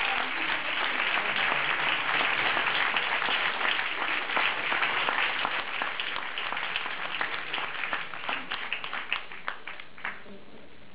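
Audience applauding: dense clapping that thins out to a few scattered claps and dies away near the end.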